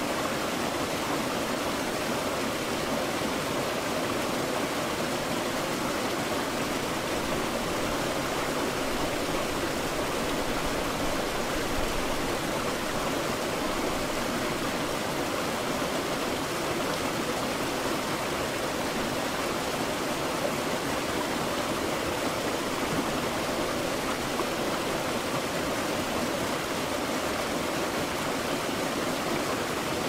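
Small waterfall pouring over rocks into a pool: a steady, unbroken rush and splash of falling water.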